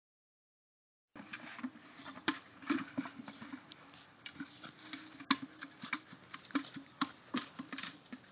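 Irregular light knocks, scuffs and rustling as a puppy runs through grass with a plastic bucket over her head, the bucket bumping and scraping along the ground. The sound starts about a second in.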